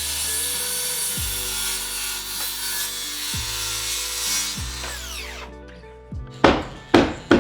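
Power saw cutting through wood for about five seconds, its motor then winding down, followed near the end by three sharp knocks.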